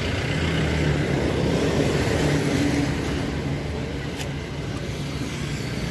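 A motor vehicle engine running with road-traffic noise: a low steady hum, louder for the first couple of seconds and then easing off a little.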